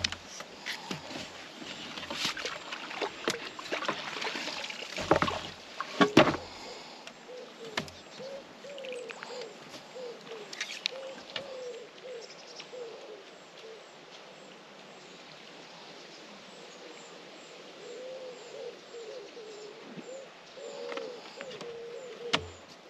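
A pigeon cooing in repeated low phrases from about eight seconds in and again near the end. In the first seven seconds there are clicks and two loud knocks from fishing tackle being handled.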